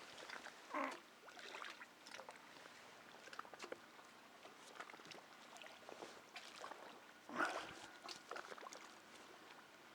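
Faint, scattered short cries of white birds circling over bread thrown on the water, the clearest just under a second in and about seven and a half seconds in.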